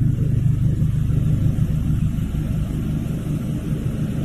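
Lexus GS sedan's engine running at low speed as the car moves slowly, a steady low rumble.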